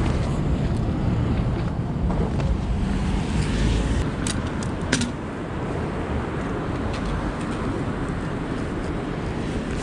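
Strong wind buffeting the microphone with a steady low rumble, mixed with city traffic. Two sharp clicks about four and five seconds in as the bike's U-lock is handled.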